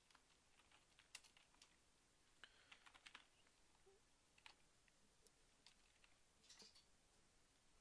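Faint, irregular clicking of a computer keyboard and mouse against near silence.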